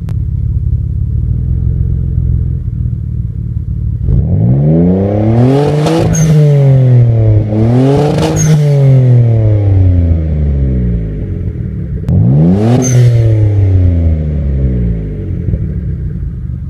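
Mitsubishi Legnum VR-4's 2.5-litre twin-turbo V6 idling, then revved three times from about four seconds in. Each rev climbs quickly to a peak and falls back to idle, the second following the first closely and the third coming about four seconds later.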